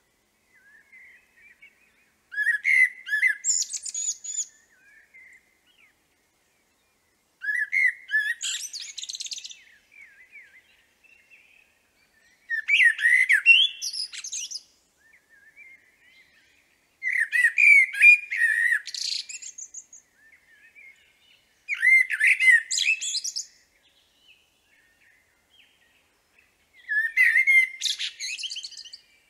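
Common blackbird singing: six separate phrases a few seconds apart, each starting with lower whistled notes and ending in a high twitter.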